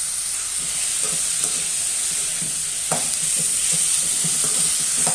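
Chopped snake gourd, tomato and onion sizzling in hot oil in a kadai, stirred with a spatula that scrapes and clicks against the pan. There is one sharp knock about three seconds in.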